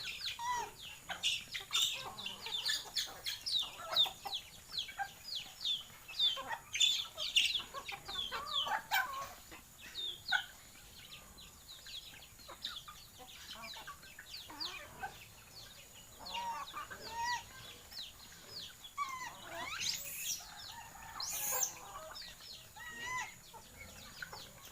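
A flock of native chickens clucking, with many short, high, downward-sliding peeping calls that are busiest in the first ten seconds and thin out after.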